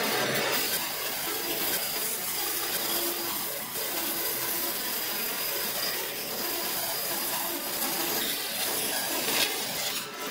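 Bandsaw running and ripping lengthwise through a bark-covered log: a steady noise of the blade cutting wood over the hum of the machine.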